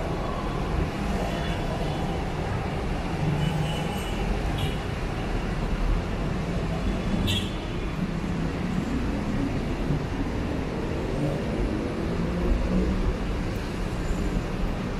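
Steady city road traffic, motor vehicles running and passing along the street.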